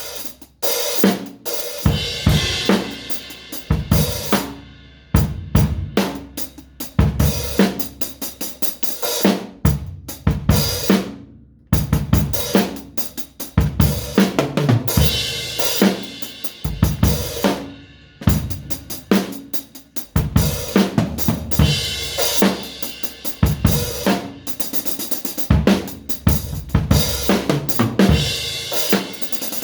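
Drum kit played solo: kick drum, snare, hi-hat and cymbals in busy phrases and fills, with a brief stop about eleven seconds in.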